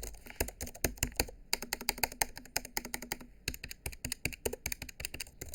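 Typing on the Jelly Comb KE68 wireless split ergonomic keyboard: a quick, irregular run of key clicks with two short pauses.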